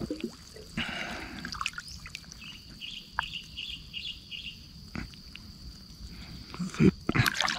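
Soft splashing, dripping and net rustle as hands work a small white fish free of a nylon gill net in the water. About six quick bird chirps come in a short run midway.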